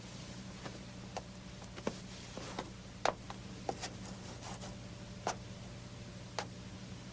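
Soft, irregularly spaced clicks and knocks over a low steady hum, from a door being opened and footsteps crossing the room.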